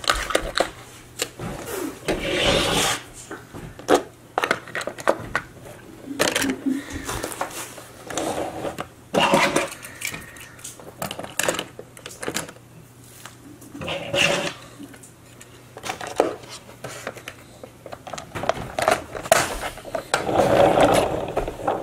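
Die-cast toy cars being handled and set into a plastic carrying case: scattered clicks and clatter of metal and plastic, with several short rubbing scrapes as the cars slide into the slots and the cover goes on.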